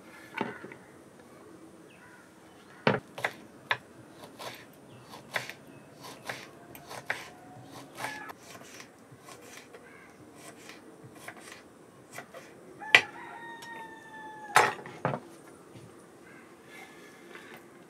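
Kitchen knife knocking irregularly on a wooden chopping board as green chillies are sliced. About 13 seconds in, a chicken gives one drawn-out call lasting about a second and a half.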